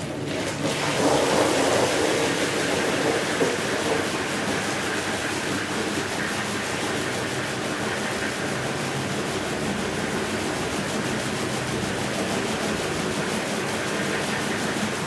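Steady hiss of water spray over a low motor hum, as from a pressure washer on a rug. It is somewhat louder for the first few seconds.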